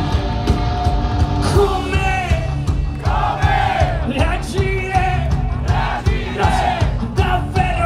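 Rock band playing live: drums, electric guitars and singing, heard from among the audience.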